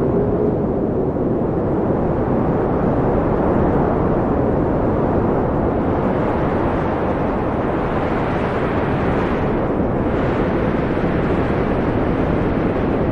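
Wind blowing steadily with a low, even rush, swelling a little brighter in a gust about two-thirds of the way through.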